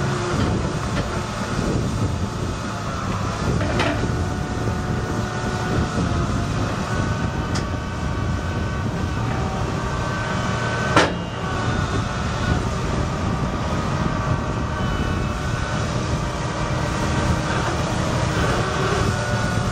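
Six-cylinder diesel engine of a 1986 John Deere 790 excavator running steadily as the hydraulics work the boom and bucket, with a few knocks and one sharp clank about halfway through.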